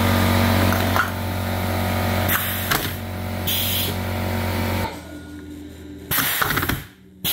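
Pneumatic aluminum can crusher cycling: short bursts of compressed air hissing from its valve as the air cylinder drives the ram out to crush a 16 oz can and back. A steady machine hum runs underneath and cuts off about five seconds in.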